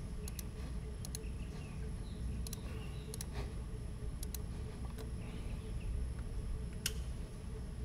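Computer mouse clicking: about half a dozen short clicks, mostly in quick pairs, over a steady low room hum.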